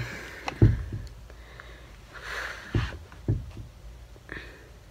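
A person breathing out and sniffing close to the microphone, with a few soft knocks.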